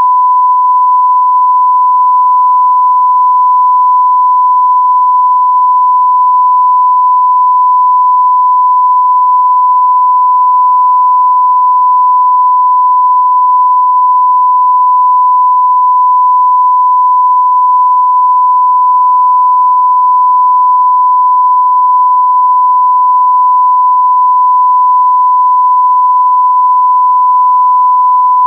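Steady 1 kHz line-up tone, the pure reference tone that goes with SMPTE colour bars at the head of a video tape, held loud and unchanging.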